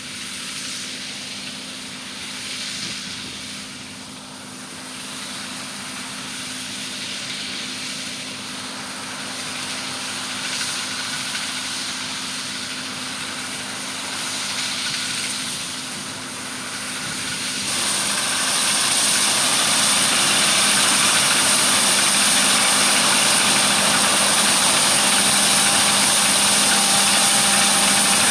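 Farm harvest machinery running steadily with an engine hum. About two-thirds of the way through it becomes much louder, with a strong hiss.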